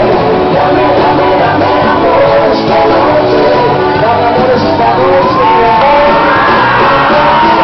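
Loud live band music in a large hall, with voices singing and shouting along.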